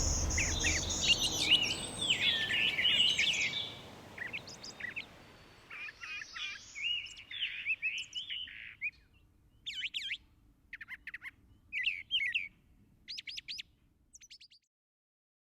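Songbirds singing and chirping, many overlapping calls at first, then separate short phrases that thin out and stop near the end.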